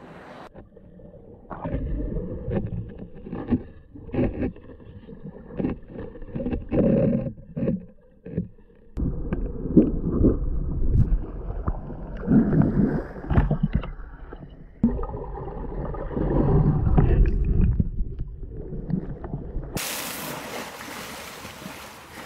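Water sloshing and splashing close up as swimming elephants churn the pool around the camera. The sound comes in irregular, muffled surges. About twenty seconds in it changes suddenly to a brighter, steady rush of churning water.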